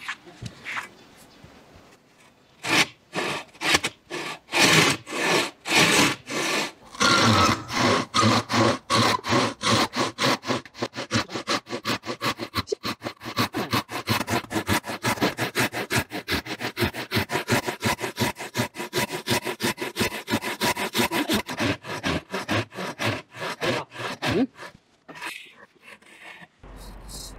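A long two-man handsaw sawing through wood, pushed and pulled between two people. The strokes start slowly a few seconds in, settle into a fast, even rasp of about three to four strokes a second, and stop near the end.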